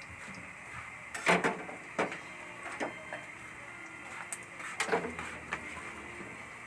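Kitchen utensils and dishes being handled: about five scattered knocks and clatters over a steady faint hiss.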